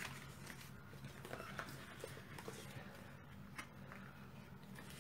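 Faint, scattered rustles and small ticks of folded cardstock being handled and pressed along its score lines to make an easel card's back panel stand up.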